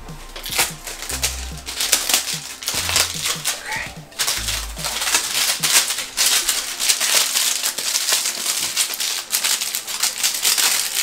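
Sticky packing tape being peeled and foam packing handled: a run of crackling and rustling, over background music with a bass line.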